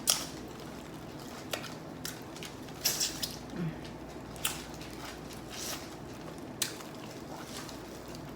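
Close-up wet eating sounds from seafood boil: scattered squishy smacks and clicks of chewing and of handling saucy shrimp, a small cluster about three seconds in.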